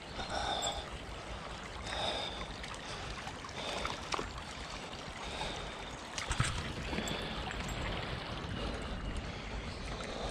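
Footsteps scuffing along an outdoor path every second or two over a steady rushing noise, with a few sharp ticks.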